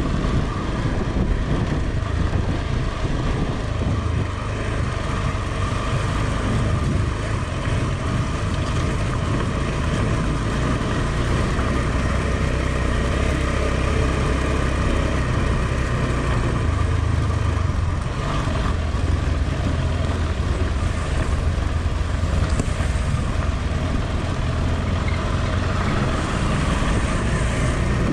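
KTM 390 Adventure's single-cylinder engine running steadily under a constant rushing noise, with no clear changes in pitch.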